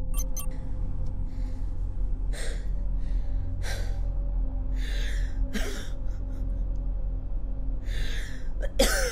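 A woman gasping and breathing hard in separate, ragged breaths a second or so apart, the sharpest and loudest near the end, as she is roused after harsh questioning. Under the breaths runs a low, steady, ominous music drone.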